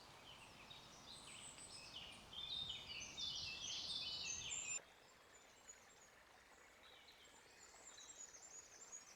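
Wild birds singing: quick, high chirps and trills that cut off abruptly about halfway through, then fainter high chirping returns near the end.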